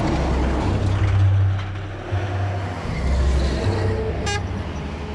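A container truck passing close by at speed on a highway: a heavy low engine drone under rushing tyre and wind noise, loudest about a second in, then traffic noise going on. A very short high beep sounds just after four seconds in.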